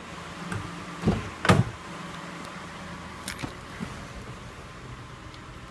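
Remote-started car engine idling with a steady low hum, broken by two thumps about a second in and a lighter knock a couple of seconds later, as the driver gets into the car.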